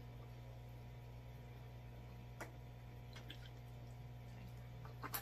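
Faint wet squishing and a few sharp clicks as fingers pick a sauce-soaked piece of pizza out of a glass bowl, over a steady low hum. One click comes about halfway through and the sharpest near the end.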